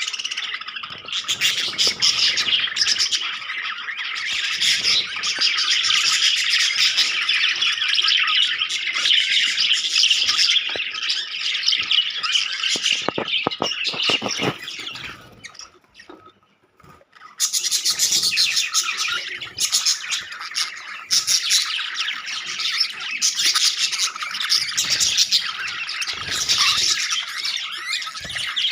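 A flock of budgerigars chattering and squawking continuously in a dense, busy din. The sound drops out for a couple of seconds just past halfway, then starts again abruptly.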